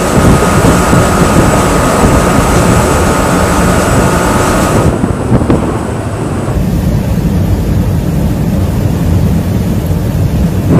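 Loud, steady rushing rumble of wind and engine noise, with a faint steady whine in the first half. The high hiss drops away about five seconds in and thins again a moment later.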